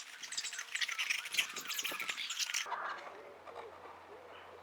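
Schwalbe Pro One road tyre being worked off the rim by hand, rubber scraping and squeaking against the rim in a dense rapid crackle for about two and a half seconds. After that, birds chirp faintly.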